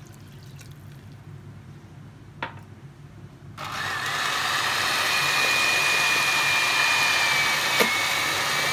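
Electric hand mixer switching on about three and a half seconds in and running steadily, its beaters whisking milk into creamed butter and sugar in a plastic bowl, with a steady high whine. Before it starts there is one light knock.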